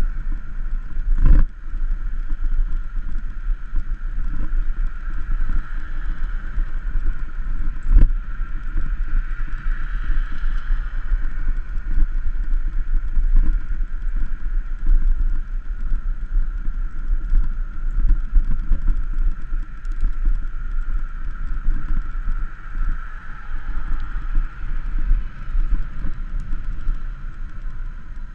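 Wind and road rumble on a bicycle-mounted camera's microphone while riding along a street, with two sharp knocks, about a second in and again about eight seconds in.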